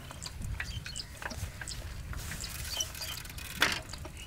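Bicycle rattling and clicking as it rides over a rough dirt path, with one louder knock about three and a half seconds in, over a low rumble.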